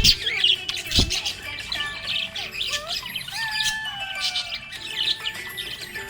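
Small pet parrots chattering with rapid chirps and squawks, mixed with a few drawn-out whistled notes, and two sharp loud clicks near the start.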